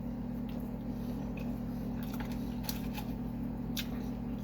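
Close-up eating sounds: a few soft mouth clicks and smacks from chewing sushi, over a steady low electrical hum.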